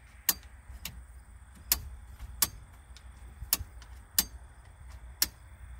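About seven sharp clicks at uneven intervals as the switch mechanism at the top of a 1982 Jeep CJ7's steering column is flicked back and forth by hand. The mechanism is flicking freely, not binding.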